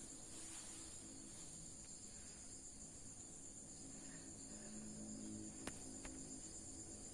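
Faint, steady high-pitched chirring of insects, like crickets, with a low hum beneath it. Two light clicks about a third of a second apart near the end.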